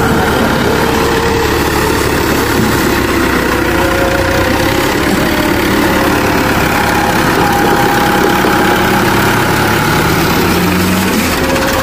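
New Holland 640 tractor's diesel engine running steadily at close range.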